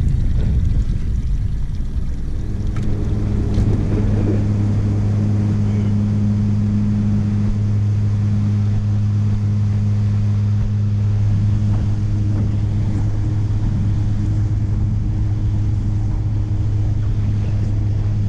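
Boat's outboard motor running, settling to a steady speed about two seconds in, with a constant low hum over rushing noise.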